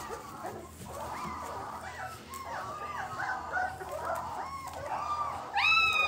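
Newborn Belgian Malinois puppies whimpering and squeaking while they nurse: many short, high, overlapping cries, with one louder cry near the end.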